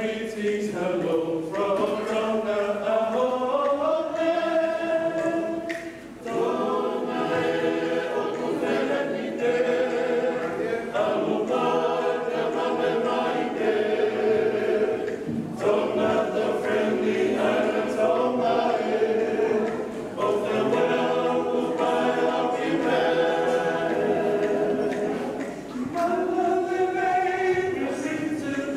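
A family choir of men, women and children singing a song together, unaccompanied, with brief pauses between phrases.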